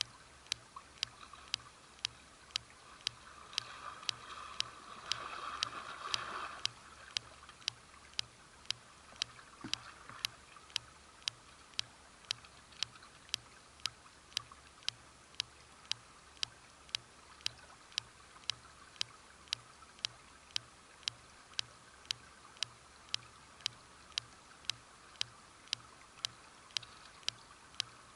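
Regular clicking, about two sharp clicks a second, over the faint rush of a running stream. About four seconds in, a louder stretch of noise rises over it for two seconds or so.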